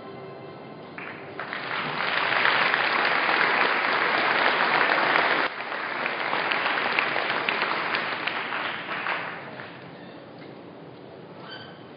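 Audience applauding, building up about a second in and dying away about nine seconds in.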